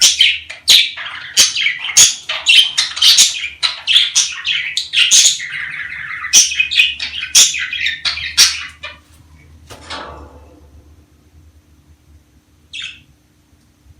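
Budgerigars chattering in quick, high-pitched chirps that break off about ten seconds in, followed by one short call near the end.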